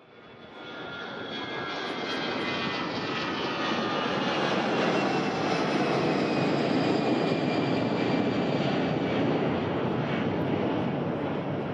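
Jet airliner engines going past: a dense rushing noise that builds up over the first two seconds and then eases a little, with a high whine falling slowly in pitch during the first few seconds.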